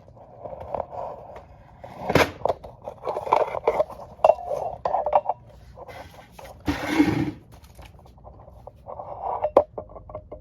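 Lawnmower rear wheel height adjuster and axle holder being handled and turned by hand: irregular clicks, clinks and scrapes of hard parts, with a longer scrape about two-thirds of the way in and a sharp click near the end.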